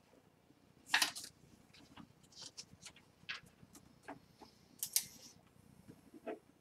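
Trading card in a plastic holder and plastic sleeves being handled on a wooden tabletop: scattered soft clicks and rustles, the loudest about a second in and near five seconds. In the second half a pen writes on a sticky note.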